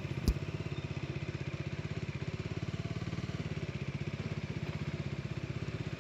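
Motorcycle engine running steadily with an even, fast pulse, one short knock about a third of a second in.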